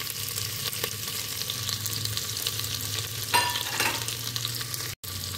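Sliced onions sizzling and crackling in hot ghee and mustard oil in an open pressure cooker, stirred with a wooden spatula. There is a brief, louder, higher-pitched scrape about three seconds in.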